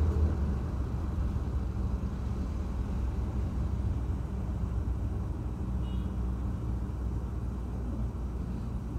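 Car engine idling while stopped, heard from inside the cabin as a steady low hum.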